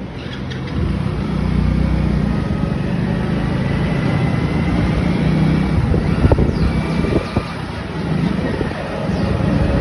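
A two-wheeler running as it picks up speed on the road, a steady low engine and road rumble that grows louder about a second in, with wind rushing over the microphone.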